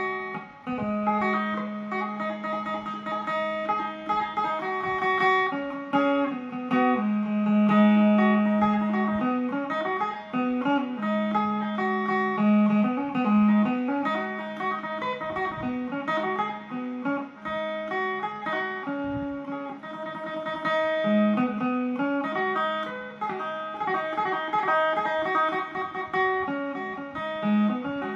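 Two-string electric phin played through an amplifier: a quick picked melody of short notes over a steady low drone note.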